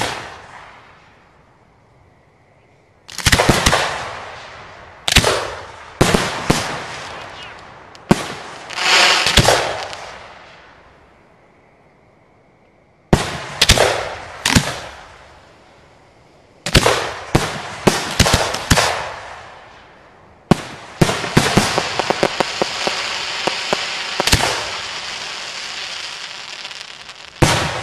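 A fireworks display with aerial shells launching and bursting. It is a series of sharp bangs, some coming in quick clusters, with a long stretch of dense crackling near the end.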